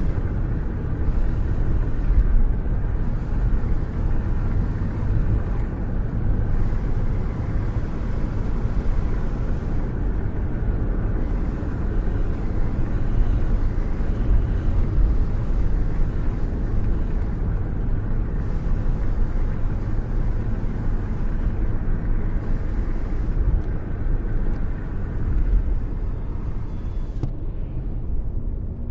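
Steady wind buffeting and road rumble from a moving car, recorded out of its open window while cruising; the sound cuts off near the end.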